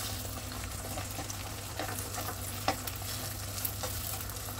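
Beaten egg sizzling in oil in a non-stick pan while a slotted spatula pushes and breaks it up, scraping the pan with a couple of light knocks.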